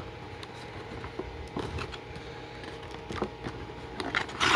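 Toy box and packaging being handled: scattered light taps and clicks, with a louder rustle near the end.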